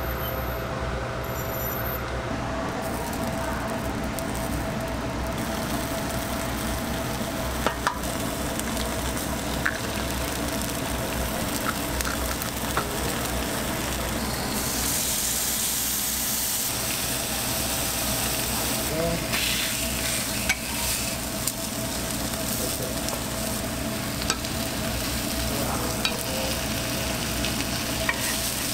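Food sizzling on a hot flat-top griddle, with an egg frying in a ring mould. The sizzle grows louder and brighter about halfway through, with a few sharp clicks.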